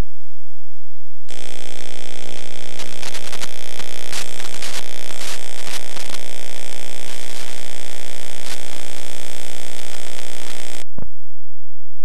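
Loud electrical buzz with crackling static, switching on about a second in and cutting off suddenly near the end, followed by a short low thump. It has the sound of a fault in the home-video tape's audio track rather than anything in the room.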